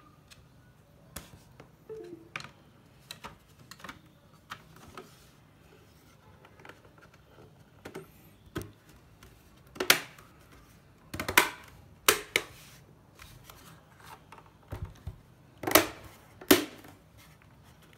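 Plastic top case of a mechanical keyboard being fitted and pressed onto the board: scattered light clicks and knocks, with louder sharp snaps about ten seconds in and again near the end.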